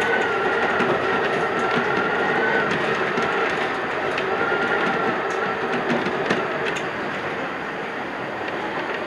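Iyo Railway 3000 series electric train running along the line, heard from the driver's cab: a steady rolling noise with a faint wavering whine, and a few sharp clicks in the second half.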